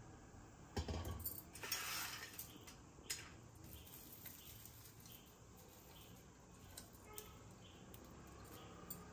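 Quiet kitchen handling sounds: a couple of light clicks of a container or utensil and a short rustle about two seconds in, as crisp fried onions are scattered by hand over layered biryani rice.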